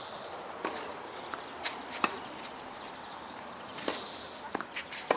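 Tennis rally: sharp pops of the ball off racket strings and its bounces on a hard court, several hits roughly a second apart, the loudest about two seconds in.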